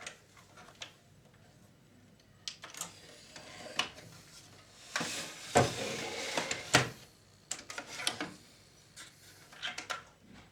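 Hands handling small plastic and metal parts of a VCR during reassembly: scattered clicks, knocks and rubbing, busiest in the middle with two sharp clicks.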